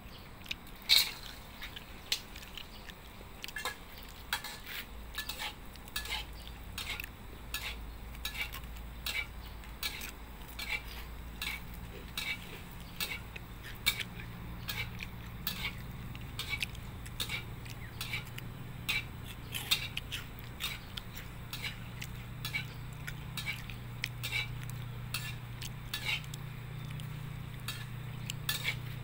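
Metal spatula scraping and clinking against a steel wok, stirring dried rice frying in oil: repeated sharp strokes, roughly one to two a second, over a low steady hum.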